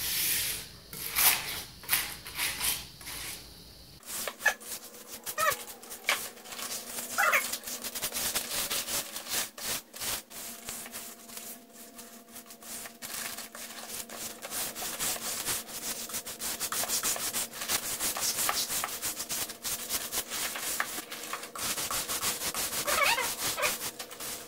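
Scrubbing rust off a submerged cast iron table saw top in a vinegar bath: continuous irregular wet rubbing and scraping strokes on the iron, with a few short squeaks.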